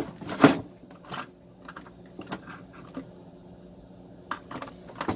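Handling noises: a plastic zipper bag and small items rustling and clicking as they are handled, with the loudest rustle about half a second in and a cluster of clicks near the end.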